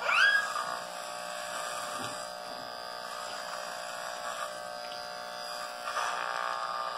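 Corded electric hair clipper fitted with a guide comb, buzzing steadily as it is run through a man's hair on the side of his head. A short, loud rising squeal right at the start is the loudest sound.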